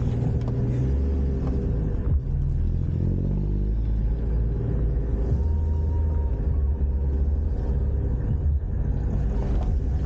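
Motor vehicle engine running while on the move, heard from on board with a heavy low rumble; its pitch climbs about three to four seconds in as it speeds up.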